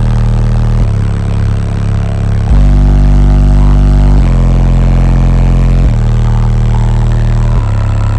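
Bass-heavy music played loud through a car audio system of twelve Sundown ZV5 12-inch subwoofers: deep held bass notes that step to a new pitch about every second and a half to two seconds.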